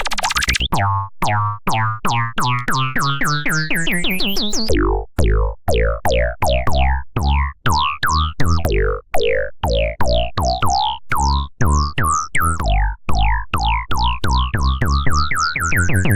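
Synthesized oscilloscope music, stereo electronic tones whose waveforms draw pictures on an XY display. A fast rhythm of sharp clicks runs over pulsing bass, with pitched tones that glide up and down and a rising sweep in the first few seconds.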